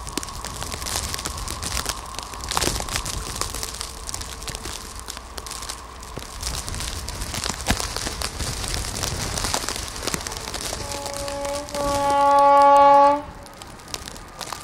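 Wind and snow crackling on the microphone in a snowstorm; near the end a train's horn sounds, a softer note first and then a louder blast of about a second and a half.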